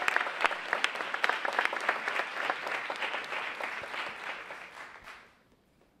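Audience applauding, the clapping thinning out and dying away about five seconds in.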